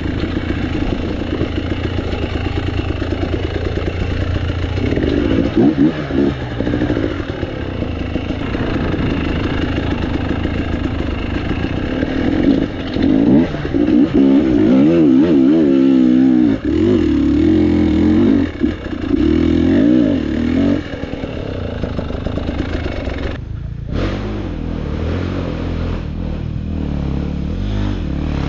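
Off-road motorcycle engine revving up and down repeatedly, loudest through the middle of the stretch, with clattering from the bike.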